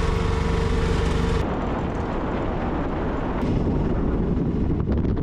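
Auto-rickshaw engine running steadily, heard from inside the open cabin. About a second and a half in, it cuts to a low, irregular rumble of wind buffeting the microphone.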